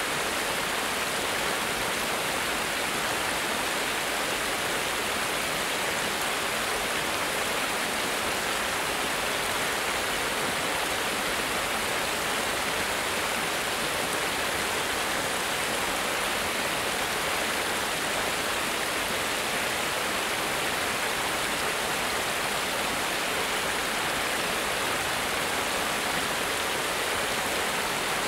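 Water spilling over a small cascade, a low stone weir on a stream: a steady, even rush with no change.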